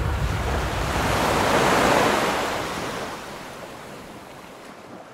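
Ocean surf washing onto a beach, swelling over the first two seconds and then fading away.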